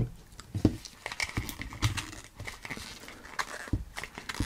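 Small items from an earbud box being handled by hand: scattered light taps and clicks, a few sharper knocks about half a second in and near the end.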